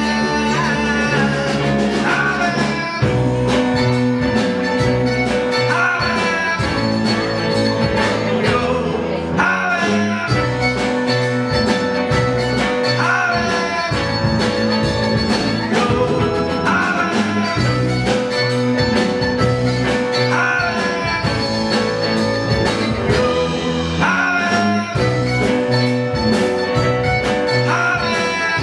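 Live folk-rock band playing: mandolin, electric guitar, electric bass and drum kit keeping a steady beat, with a male voice singing the lead.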